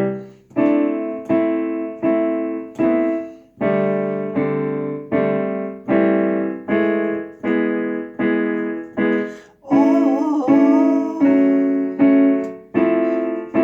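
Piano or electric keyboard playing a steady run of struck chords, each dying away before the next, about three every two seconds. Near the end a voice comes in singing a drawn-out "Oh" over the chords.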